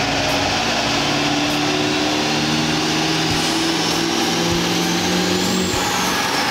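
Duramax diesel pickup engine running hard under load on a chassis dyno, a loud steady roar. A turbo whistle climbs steadily in pitch through most of the run, then falls away near the end as the pull comes off.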